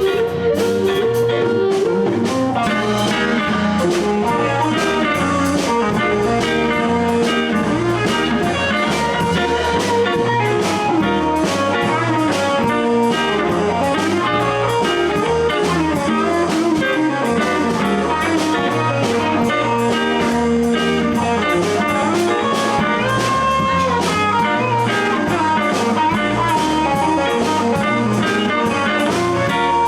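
Live blues band playing an instrumental break in a shuffle: electric guitars and bass with a melodic lead line over a steady drum-kit beat.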